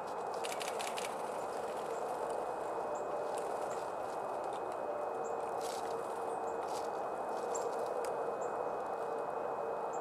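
Light taps and clicks of birds pecking at seed on a hollow wooden stump, with a quick run of taps about half a second in and a few single ones later. They sit over a steady rushing outdoor background with a few faint high chips.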